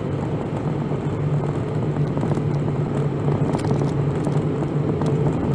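Toyota minivan driving on the highway, heard from inside the cabin: a steady engine and drivetrain drone under even tyre and road noise.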